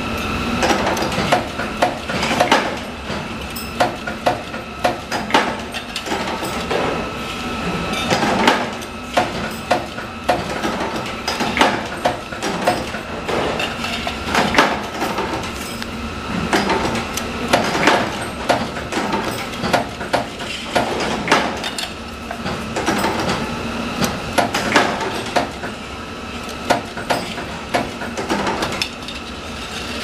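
Metal drawer-handle parts being worked at a factory bench machine: irregular sharp metallic clanks and clinks, at times several a second, over a steady machine hum with a high whine.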